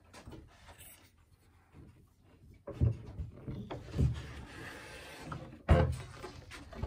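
Handling noise from fingers moving over the phone, with rubbing and three dull thumps.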